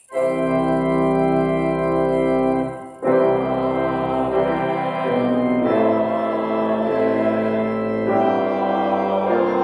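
Church organ playing slow, sustained chords, with a short break about three seconds in.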